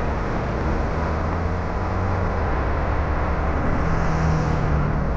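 Busy city street traffic: a steady low drone of vehicle engines, buses, cars and scooters, over road noise.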